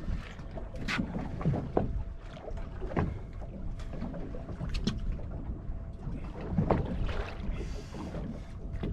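Water slapping against a small fishing boat's hull, with a steady low rumble and scattered short knocks and splashes.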